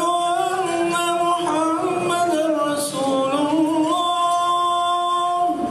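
A man singing unaccompanied into a microphone through PA loudspeakers. It is one long ornamented phrase: the voice winds through melismatic turns and dips lower in the middle, then rises to a single steady held note that stops just before the end.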